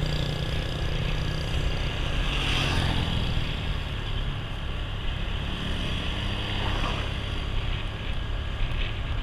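Steady vehicle and road noise with wind rumbling on the microphone, heard from a moving vehicle; it cuts off suddenly at the end.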